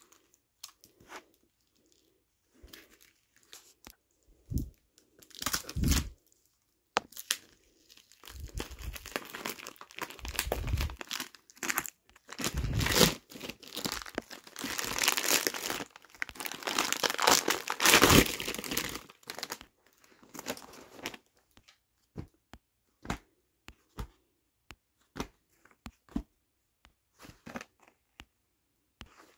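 Clear plastic packaging crinkling and tearing as it is pulled off a bundle of folded fabric storage bags. Scattered rustles at first, then a long stretch of dense crinkling and ripping through the middle, then light rustles and taps as the bags are laid out.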